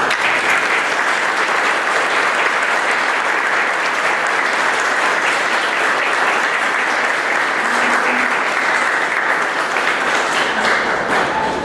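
Audience applauding steadily for about eleven seconds, dying away near the end.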